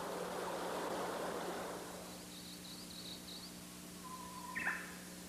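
Mountain stream rushing over rocks, fading out about two seconds in. Faint bird calls follow: a run of short high chirps, then a brief whistle and a quick sweeping call near the end.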